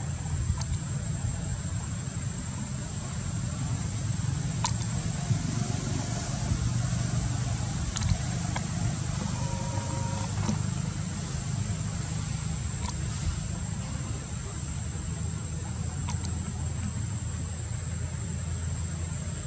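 Outdoor ambience of a steady low rumble with a continuous high-pitched insect drone, broken by a few faint clicks.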